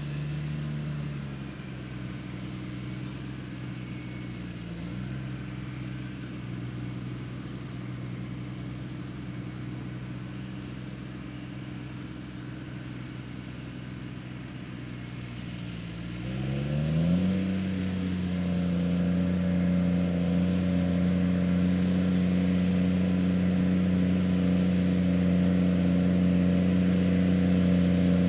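JCB Fastrac 3230 tractor engine running steadily under load while pulling a six-furrow plough through hard-packed grassland. About two-thirds of the way in the revs climb quickly, then hold at a higher, louder pitch.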